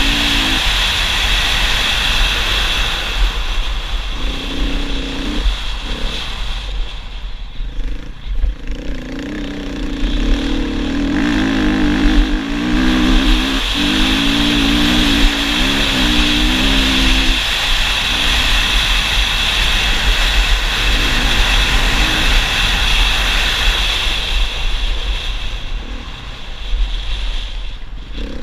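Husqvarna FE 450 single-cylinder four-stroke enduro engine running hard at speed, heard from the bike, with a steady rush of wind on the microphone. The revs rise and fall several times in the middle.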